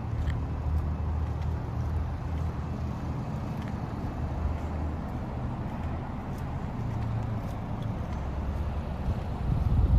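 A vehicle running with a steady low rumble. Wind buffets the microphone near the end.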